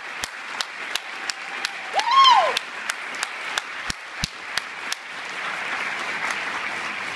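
Audience applause: at first a few sharp claps about three a second, with one rising-and-falling cheer about two seconds in, then the whole crowd joining in about five seconds in as steady applause.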